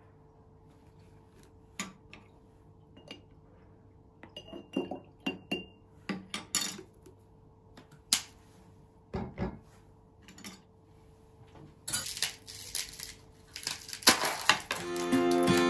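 Kitchenware clattering and clinking: scattered knocks and clinks of dishes, glass and utensils being handled, growing busier and noisier near the end.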